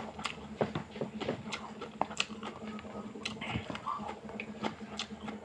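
A person chewing a mouthful of rice with the mouth close to the microphone: irregular wet clicks and lip smacks. A faint steady hum runs underneath.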